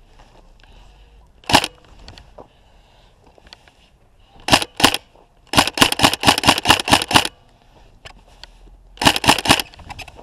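Airsoft electric gun, a Tokyo Marui High Cycle AUG, firing sharp single shots: one, then a pair, then a quick string of about a dozen at roughly eight a second, then three more near the end.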